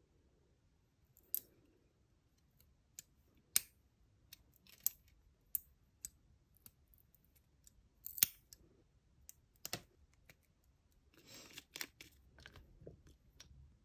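Metal nail clipper snapping shut again and again as it cuts through long gel nail extensions: a string of sharp single clicks about a second apart, followed near the end by a short patch of rustling and small clicks from handling.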